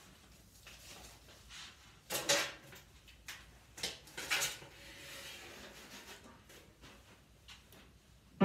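Faint handling sounds: rustling and light knocks of a binder and papers being moved about and set down, with the louder bumps about two seconds in and around four seconds in.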